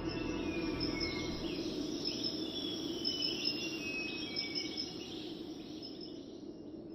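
Insects trilling in a steady, high, pulsing chorus, with short falling whistled calls, likely birds, over a low steady hum.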